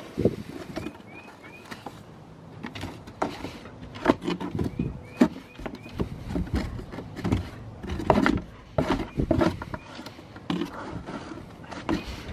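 Alaskan Malamute nosing and pawing at a cardboard box, with irregular knocks, scrapes and rustles of cardboard and short snuffling noises as it hunts for a carrot through the holes.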